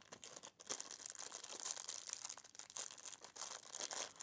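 A small clear plastic bag crinkling and crackling as it is handled and pulled open, a dense run of small crackles starting about half a second in.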